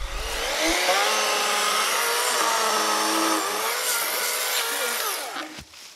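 Greenworks 40V cordless electric chainsaw cutting through a large log, its motor whine sagging and recovering in pitch under load as the battery runs low. It winds down and stops about five and a half seconds in as the cut finishes.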